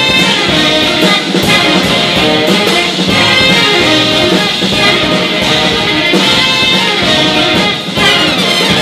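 Jazz big band playing loud, full ensemble with the brass section prominent over the rhythm section: the closing bars of a tune.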